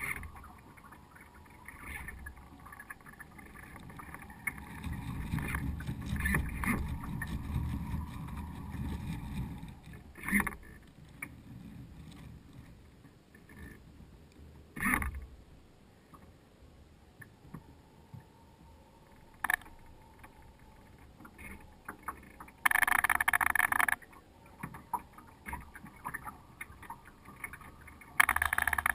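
Water lapping and washing along the hull of a radio-controlled sailing yacht, heard from a camera on its deck, with low wind rumble on the microphone and a few sharp ticks. Near the end come two loud bursts of hiss, each starting and stopping abruptly, about a second long and then a longer one.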